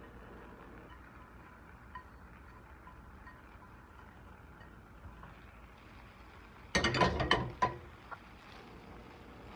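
A metal spoon clinking and scraping against cookware as scrambled eggs are pushed out of one pan into another: a quick cluster of sharp, slightly ringing clinks about seven seconds in, then one more knock; before that only a faint steady background.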